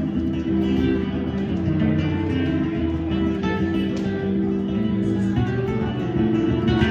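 Guitar music: plucked notes changing over held low bass notes.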